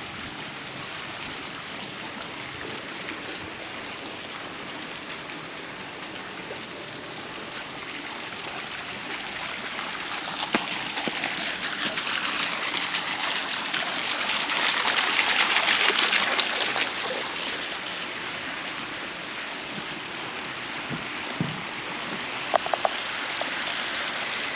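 Running water splashing steadily, growing louder to a peak a little past the middle and then fading back.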